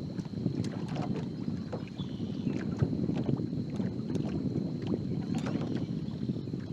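Wind buffeting the microphone and water lapping against a fishing boat's hull, with scattered small ticks and splashes.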